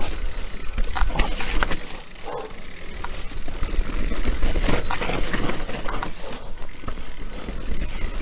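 Enduro mountain bike riding down a dirt forest singletrack: tyres rolling over earth and leaves, with frequent short knocks and rattles from the bike over bumps and a low wind rumble on the microphone.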